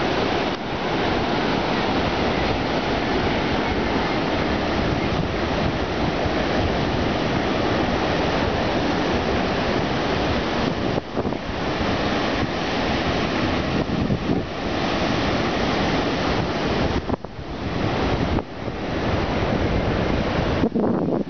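Wind buffeting the microphone over the surf of ocean waves breaking on the beach: a loud, steady rush with a few brief lulls in the second half.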